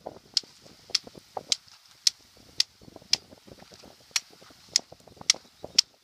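A knife cutting along the armoured, scaled hide of an alligator gar, each stroke through the hard scales giving a sharp crunching click, about ten in a steady run of roughly two a second.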